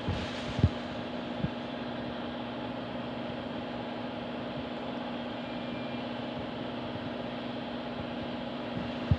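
Steady machine hum, even and unchanging, with two short soft knocks in the first second and a half.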